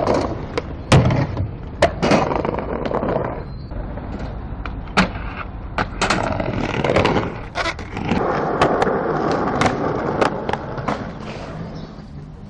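Skateboard wheels rolling on concrete, with repeated sharp clacks of the board popping and landing.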